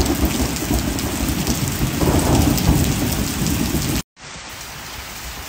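Heavy rain falling with a long, loud rumble of thunder. About four seconds in, the sound cuts out for a moment and then comes back as steady rain alone, quieter.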